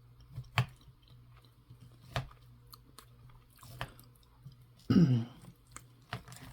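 A person chewing a mouthful of food, with a few sharp, wet mouth clicks, and a short voiced murmur with a falling pitch about five seconds in.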